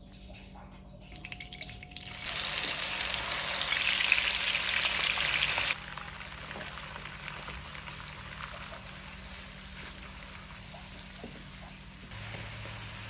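Food frying in hot oil: a loud, steady sizzle starts about two seconds in and cuts off suddenly near the middle, then a quieter sizzle carries on.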